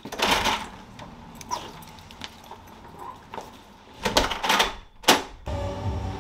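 Front door being opened and shut: handle and latch clicks with some rustling, then a sharp knock a little after five seconds in as it closes.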